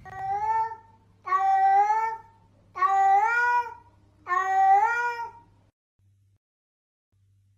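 A cat meowing four times, each a drawn-out meow lasting up to about a second, the last three louder than the first.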